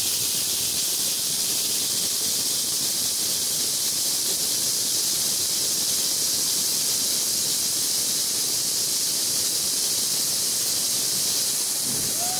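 Can-shaped firework burning with a loud, steady hiss that holds for about twelve seconds and dies away at the very end.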